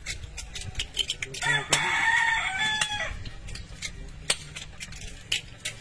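A rooster crows once, about a second and a half in, a call lasting nearly two seconds that falls away at the end. Sharp clicks and clinks of scallop shells being handled on a table sound throughout.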